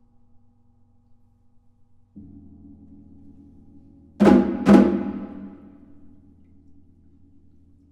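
Percussion ensemble playing: faint ringing tones, then a low sustained sound comes in about two seconds in, followed by two loud percussion strikes about half a second apart that ring on and fade.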